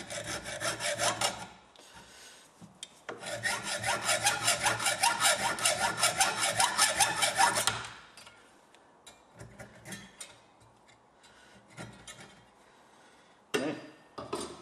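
Small hacksaw cutting the earth electrode off a Champion N21 spark plug clamped in a steel vise, going in rhythmic back-and-forth rasping strokes. A short run of strokes comes first, then after a pause a loud steady run of about three strokes a second that stops about eight seconds in. Near the end there is a brief knock.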